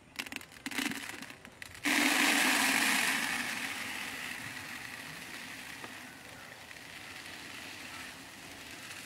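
White fertilizer granules poured from a large metal pot into a plastic bucket. Light rattling gives way about two seconds in to a sudden rushing hiss of falling granules, which slowly tapers off.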